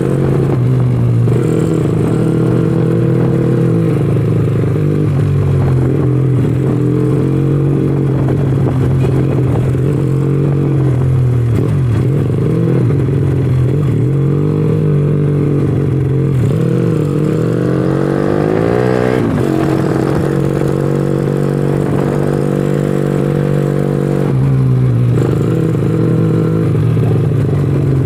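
Honda Astrea Legenda 2's single-cylinder four-stroke engine running under throttle, its pitch rising and falling, with one clear climb in revs about two-thirds of the way in and then a drop. The carburettor is set with a 42 pilot jet and 120 main jet, which the owner finds still too rich ("too wet") at low revs.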